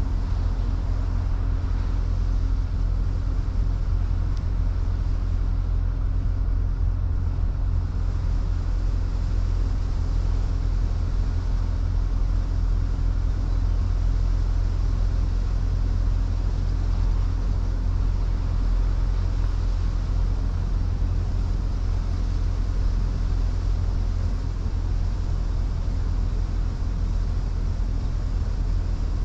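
A car being driven at a steady speed: a constant low rumble of engine and road noise that stays even throughout, with a faint steady hum above it.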